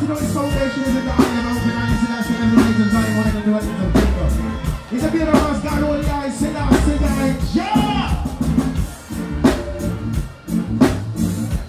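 Live reggae band playing, with a steady drum kit beat, bass and guitar, while a male singer sings over it through the PA.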